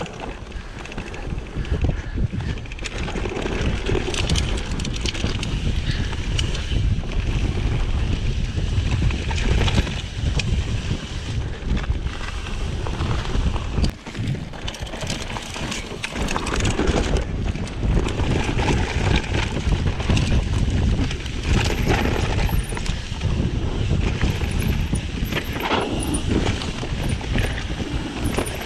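Mountain bike riding down a trail: tyres rumbling and the bike rattling and knocking over rough ground, with wind buffeting the microphone.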